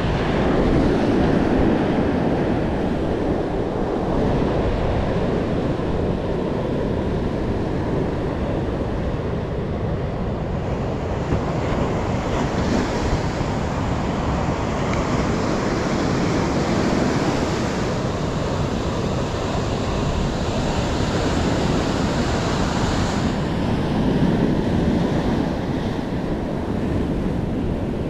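Ocean surf breaking and washing onto the shore, a steady wash that swells now and then, with wind buffeting the microphone.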